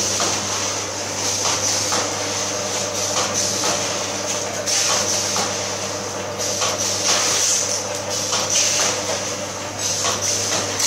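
Automatic vertical form-fill-seal pouch-packing machine running: a steady motor hum and hiss with a regular knocking as each snack pouch is sealed and cut off.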